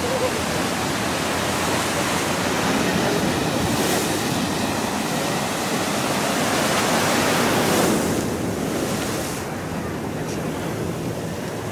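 Ocean surf breaking and washing in a steady rush of water noise. It swells louder through the middle and eases off near the end.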